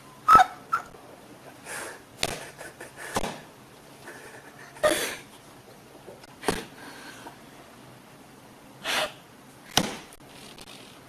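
Two cats squaring off: a few short hisses, about half a second each, among scattered light taps and knocks.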